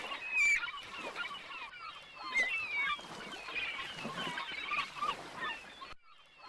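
A flock of birds calling over each other in many short squawks and chirps, cutting off suddenly near the end.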